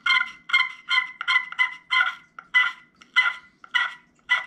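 Glass turkey pot call worked with a striker, playing a run of about a dozen short yelp notes, quick at first and slowing toward the end.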